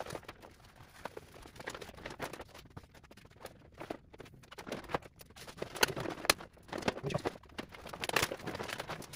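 Irregular knocks, taps and clicks of plastic golf cart body panels and parts being handled and fitted by hand, with a louder run of knocks around the middle and another near the end.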